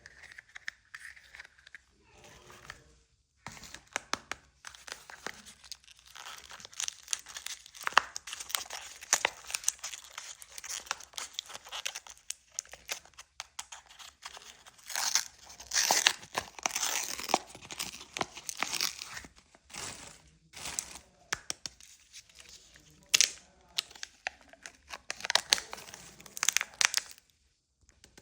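Plastic candy wrapper crinkling and tearing, a dense, irregular crackle close to the microphone, with brief pauses.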